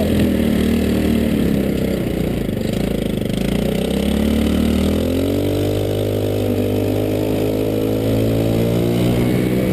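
Go-kart engine running close by. Its pitch climbs about four to five seconds in as the kart speeds up, then holds steady.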